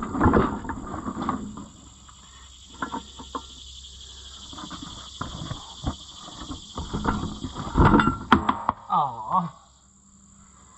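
Scattered knocks and clanks of metal parts being handled while a tractor wheel rim is bolted on, the loudest clatter about eight seconds in, over the steady chirring of insects. A short voiced sound comes near the end.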